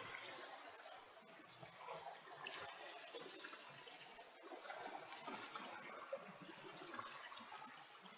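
Faint, steady rush of shallow river water flowing around and over the concrete stepping stones of a low submersible bridge, with small scattered trickles and drips.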